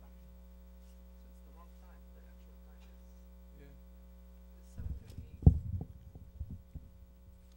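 Steady electrical mains hum from the sound system. About five seconds in, a cluster of knocks and thumps, the loudest a little after, as a microphone stand is grabbed and pulled into place, handling noise picked up by the microphone.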